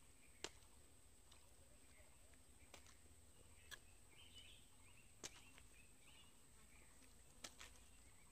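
Near silence: faint outdoor ambience with a steady faint high tone, a few soft scattered clicks, and faint chirps around the middle.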